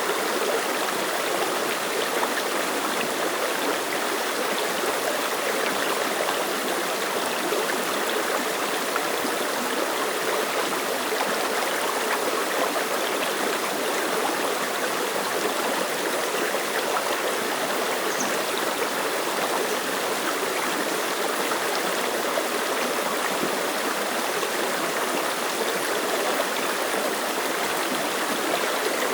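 Mountain stream water flowing over rocks: a steady, unbroken babbling rush with no pauses or changes.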